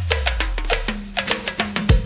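Go-go band playing: a steady pattern of percussion hits over a deep bass that slides down in pitch and settles about a second in, with a hard low hit near the end.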